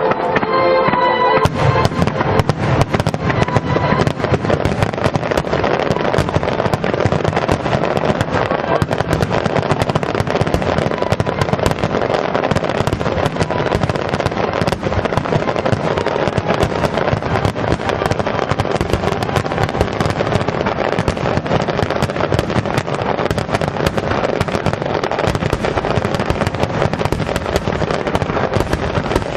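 Fireworks display in a dense barrage: many shells bursting in rapid succession, with constant bangs and crackling. Music sounds briefly at the start and stops about a second and a half in.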